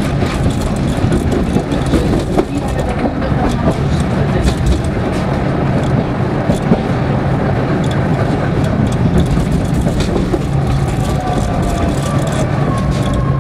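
Tram running along its track, heard from inside at the rear of the car: a steady rumble of wheels on rail with irregular clicks over rail joints and switches, and a faint falling whine near the end.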